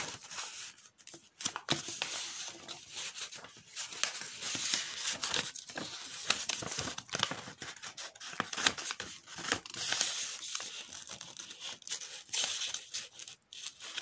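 A sheet of A4 paper being folded and creased by hand into a paper airplane: irregular rustling and crinkling with small sharp crackles.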